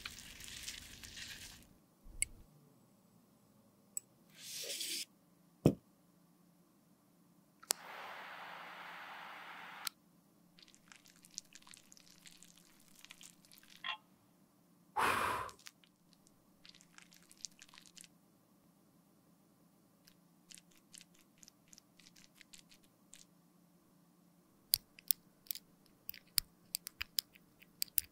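Close-miked handling sounds of cosmetics being worked by hand: a metal spatula scraping and squishing soft balm in a small tin, scattered taps and clicks, a steady hiss lasting about two seconds, and a quick run of sharp ticks near the end.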